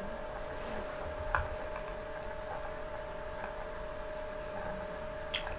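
Three short clicks about two seconds apart, over a steady faint hum: a computer mouse being clicked while paging through a document.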